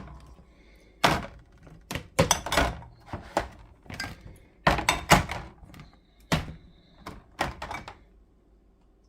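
Condiment bottles and jars being set down one after another into plastic organizer bins: a run of irregular knocks and clunks that thin out near the end.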